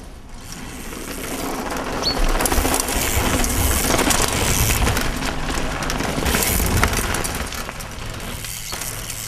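Mountain bike riding over rough, rocky trail: tyres crunching over stones and the bike rattling, with a low rumble. It builds over the first couple of seconds and is loudest in the middle.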